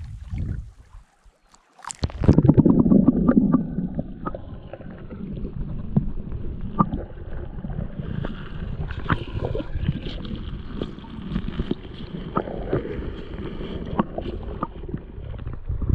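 Water heard by a camera held under the surface: a loud rush as it plunges in about two seconds in, then a muffled underwater rumble and gurgle with scattered clicks.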